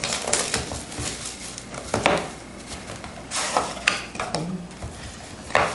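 Hands handling and opening a sealed trading card box: irregular rustles, crinkles and sharp clicks of cardboard and wrapping, loudest about two seconds in and again past three seconds and near the end.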